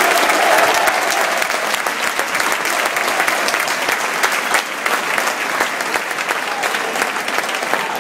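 A large stadium crowd applauding, thousands of hands clapping steadily, with crowd voices over the clapping in the first second.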